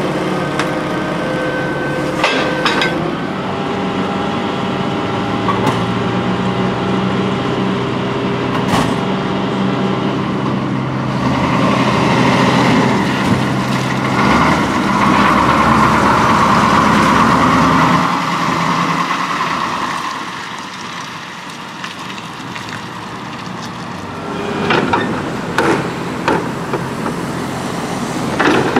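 A 1987 Ford C-Series garbage truck with a Leach Sanicruiser rear-loader body: the engine runs steadily with occasional metal clanks from the packer, then comes a louder stretch as the truck drives off. Near the end a plastic cart knocks against the hopper as it is tipped.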